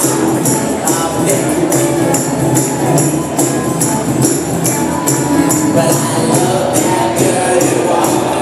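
Music with a steady beat, driven by a tambourine or shaker-like stroke about three to four times a second.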